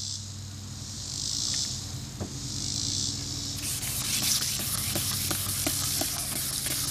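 A few squirts of water from a spray bottle onto a headlight lens. Then, from about three and a half seconds in, 1000-grit wet sandpaper is scrubbed back and forth on the plastic lens in quick, rasping strokes.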